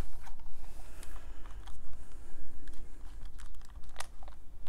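Handling noise from a handheld camera: scattered small clicks and crackles over a steady low rumble.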